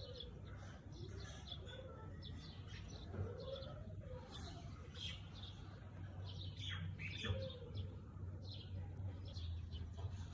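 Several birds chirping and calling, many short quick high notes overlapping, with a few lower, slower arching calls among them, over a steady low hum.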